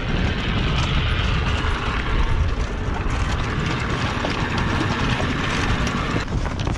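Wind buffeting the microphone, with the rustle and flap of a sailboat's mainsail cloth as the sail is lowered; the rustling stops about six seconds in.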